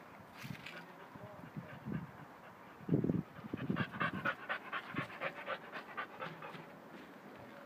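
Boxer dog panting quickly, about five breaths a second, for around three seconds. Just before the panting comes a short, low thump.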